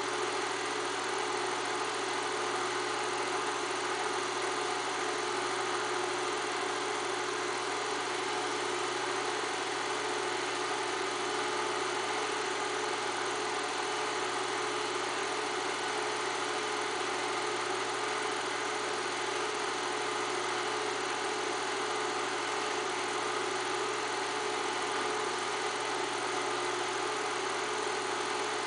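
8mm film projector running: a steady mechanical whir with a low hum, unchanging throughout.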